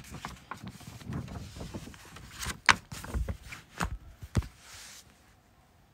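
Soft knocks, clicks and rustling of a picture book being handled, with a page turned about four and a half seconds in.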